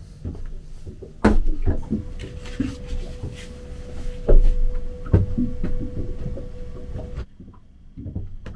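Knocks, bumps and clatter in a small boat cabin as cupboards and kitchen things are handled, the loudest thumps about four and five seconds in, with a faint steady tone through the middle.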